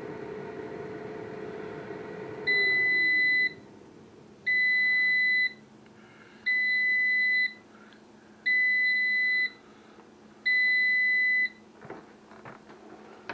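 Glass-bowl air fryer finishing its cook cycle: its fan hum winds down about two and a half seconds in, then five long beeps sound, one every two seconds, signalling the timer has run out. A few light clicks near the end as the lid handle is taken hold of.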